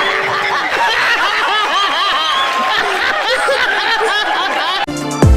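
A crowd of people talking over one another, with many voices at once. Near the end it cuts abruptly to background music with a heavy, deep beat.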